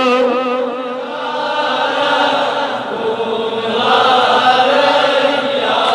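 Slow, drawn-out chanting of a devotional naat melody in held vocal notes, dipping in loudness about a second in and swelling again near the end.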